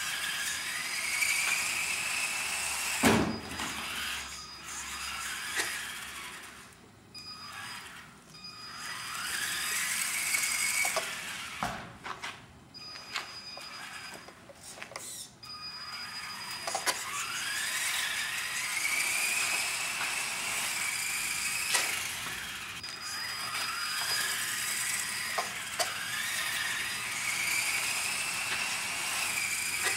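Electric motor of a small four-wheel-drive RC car whining, its pitch rising as the car speeds up and falling as it slows, several times over. A few sharp knocks come in between, the loudest about three seconds in.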